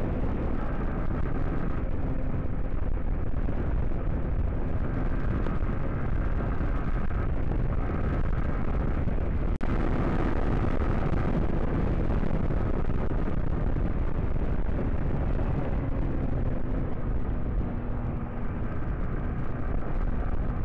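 Motorcycle riding at speed, heard from the rider: a heavy wind rumble over the microphone with the engine running steadily underneath, its note shifting a little with the throttle.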